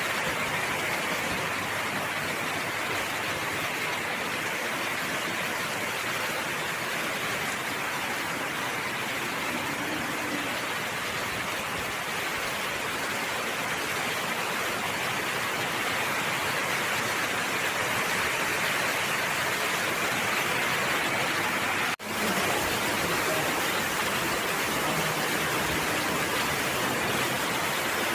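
Steady rain falling: an even, unbroken hiss of rain with one brief sudden break in the sound about three-quarters of the way through.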